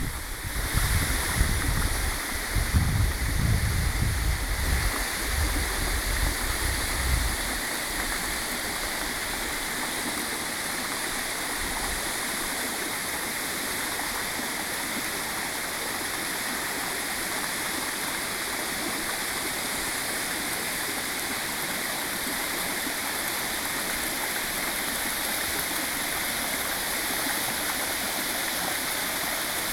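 Waterfall pouring into its plunge pool: a steady, even rush of falling water. Irregular low rumbling buffets sit over it for the first seven seconds or so, then stop.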